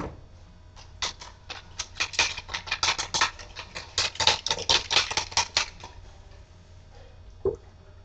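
Boxer puppy lapping from a stainless steel bowl: a fast run of sharp, wet clicking laps lasting about five seconds, then one knock near the end.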